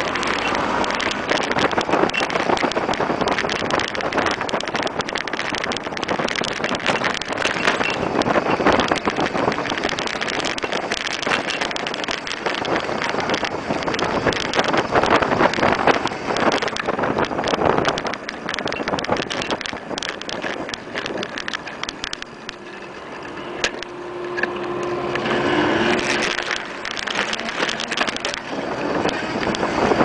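Wind buffeting the microphone and road rattle from a vehicle moving along a street, a steady rushing noise with many small clicks.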